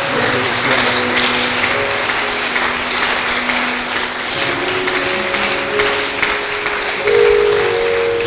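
A congregation clapping and applauding over music that holds long, steady chords, changing a few times.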